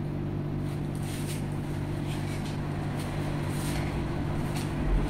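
A steady low hum with a few faint rustles over it.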